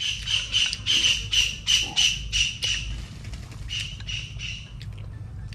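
A bird calling in a rapid run of short, high notes, about five a second, breaking off partway through and coming back briefly.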